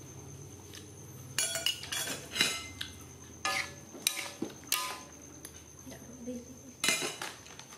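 A metal spoon or ladle striking and scraping a steel wok during stir-frying. There are about seven uneven clanks, each with a short metallic ring, mostly in the middle and one more near the end.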